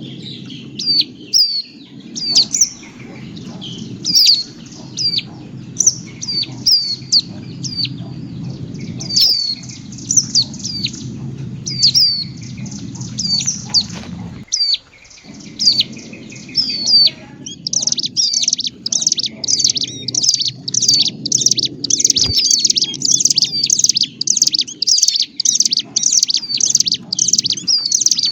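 Ciblek gunung (hill prinia) giving noisy, agitated calls mixed with prenjak calls, a lure sound used to draw wild birds down: sharp, falling chirps, then from about two-thirds through a fast, even run of about three notes a second. A low rumble runs underneath, breaking off now and then.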